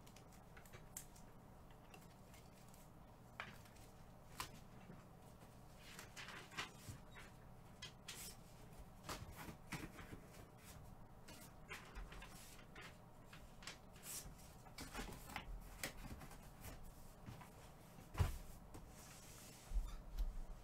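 Faint scattered clicks, knocks and rustles of things being handled in a quiet small room, with one louder knock a little before the end.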